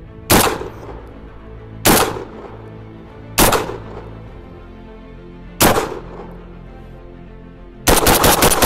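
Rock Island Armory VR80 semi-automatic 12 gauge shotgun firing: four single shots a second or two apart, then a fast string of shots near the end.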